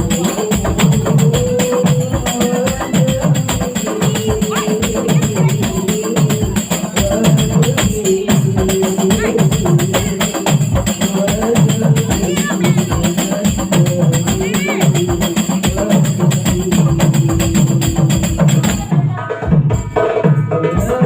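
Hadrah ensemble of rebana frame drums with jingles playing a fast, even rhythm, with a wavering melody line over it, heard through a sound system during a sound check. Near the end the bright jingle sound drops away.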